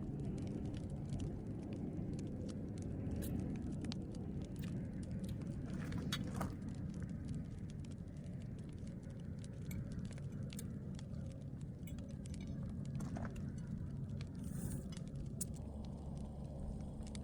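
Campfire crackling: scattered sharp pops and clicks at an irregular pace over a steady low rumble.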